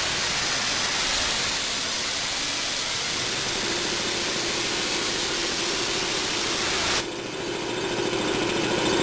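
Compressed air hissing steadily out of the Curtiss 2 HP two-stage compressor's tank as the pressure is let down. The compressor cycles on near the 90 psi cut-in pressure. The hiss cuts off suddenly about seven seconds in, leaving the compressor running and getting louder.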